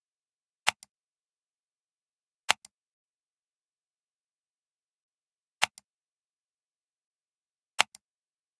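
Four computer mouse clicks, each a sharp click followed closely by a softer one as the button is pressed and released.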